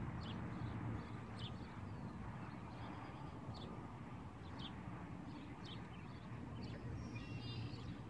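Songbird chirps, short and high, repeating about once a second, with a brief buzzy trill near the end, over a steady low wind rumble.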